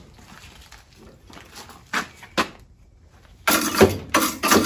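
Coarse wire brush scrubbing forge scale off a freshly twisted steel bar held in a leg vise, starting suddenly about three and a half seconds in as loud scraping strokes, roughly three a second. Before it, two brief clinks of tools being handled.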